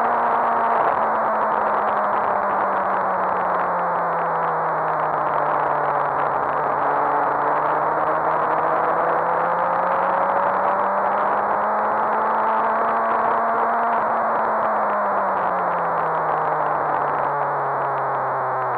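Suzuki GSX-R1000 K7's inline-four engine running at speed on track, its pitch dipping, climbing again and then falling near the end as the throttle is eased and opened, under heavy wind rush on the mic.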